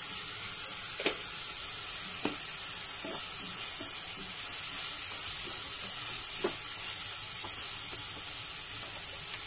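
Onion, garlic and ginger paste with turmeric sizzling in hot mustard oil in a nonstick kadai as it is sautéed, stirred with a wooden spatula. A steady frying hiss, with a few sharp clicks of the spatula against the pan.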